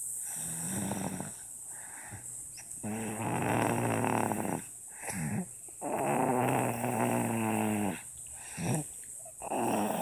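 A one-year-old baby snoring in sleep: drawn-out snores about every three seconds, each with a low buzzing pitch and short breaths between.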